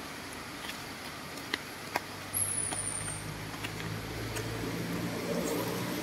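Steady rushing hiss of river rapids, joined about two seconds in by the low, steady hum of an engine running. A few faint clicks come early, and a short high whistle falls in pitch near the middle.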